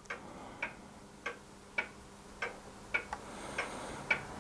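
Steady mechanical ticking, just under two ticks a second, the gaps alternating slightly long and short in a tick-tock pattern, over a faint steady hum.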